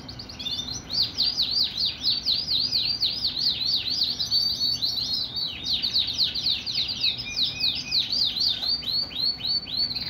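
White fancy canary singing a long, unbroken song of quick, repeated falling notes, several to the second, starting about half a second in.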